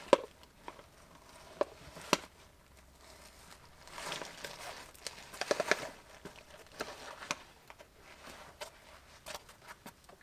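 Scattered scrapes, clicks and rustles of shoes, hands and clothing against sandstone as a hiker scrambles up a rock crack, with a busier stretch of scuffing about four to six seconds in.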